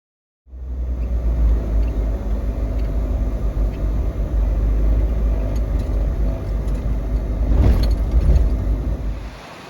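Car on the move: a steady low rumble of road and engine noise that drops to a softer hiss near the end.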